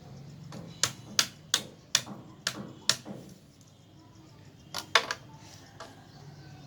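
Sharp plastic knocks of UPVC pipe pieces and tee fittings being handled and pushed together: a run of six knocks over about two seconds, then a quick double knock about five seconds in.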